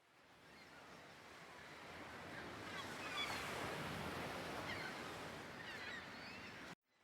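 Sea surf washing on a shore, swelling up to a peak about three seconds in, with scattered high cries of gulls. It cuts off suddenly near the end.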